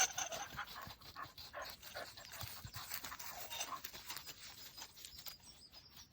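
Dog panting in quick, short breaths, with birds chirping faintly in the background.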